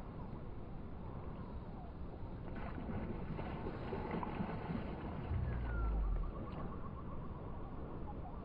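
A bass blowing up at the surface right against the bank: a splash and spray of water a few seconds in, over a steady outdoor hiss. A low rumble follows about five seconds in, the loudest part.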